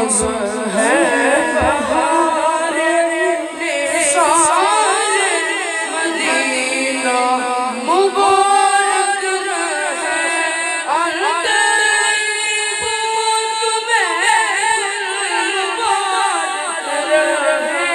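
Boys singing a naat, an Urdu devotional poem, in a wavering, ornamented melody with long held notes, amplified through a public-address system.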